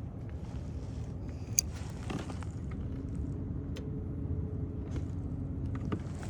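Wind buffeting the microphone: a steady low rumble, with a few small clicks and knocks, the sharpest about a second and a half in.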